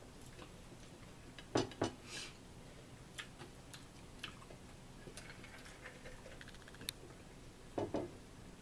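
Eating sounds at a table: a fork clicking and scraping on a plate, as scattered sharp clicks and taps with two louder double knocks, one about one and a half seconds in and one near the end.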